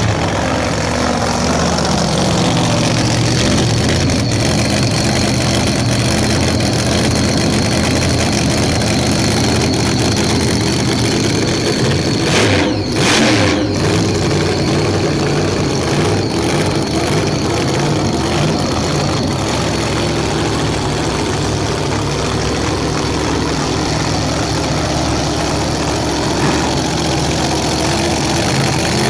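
Supercharged Pro Mod drag car engine idling loudly and roughly. There is a brief change in the sound about halfway through.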